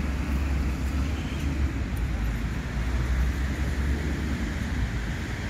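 Steady city street traffic noise with a heavy low rumble and no distinct events.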